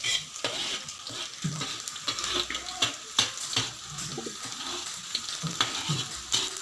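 Sliced shallots and garlic sizzling and crackling in hot oil in a pan, with short clicks of a spatula stirring them.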